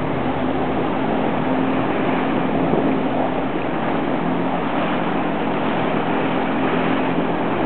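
Jet ski engine running at a steady speed, with the rush of water and wind.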